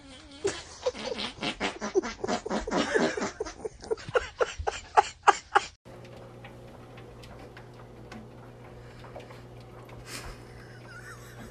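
A tabby cat letting out a rapid series of short puffing sounds as hands press down on its back, the puffs coming faster toward the end; then, about six seconds in, a faint low steady hum with a few soft ticks.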